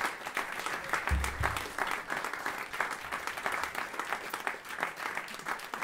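Audience applauding with dense, steady clapping in a small room, with a brief low thump about a second in.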